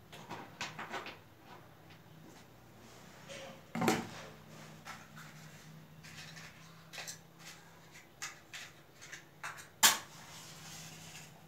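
Small steel puja vessels and plates clinking and being set down, a run of light clicks and knocks with two louder knocks, about four seconds in and near the end.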